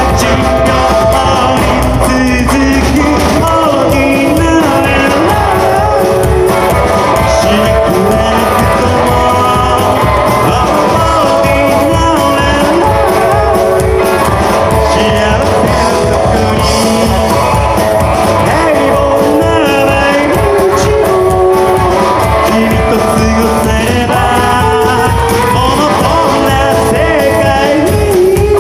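A rockabilly band playing live at a steady loud level, with a sung melody over the full band.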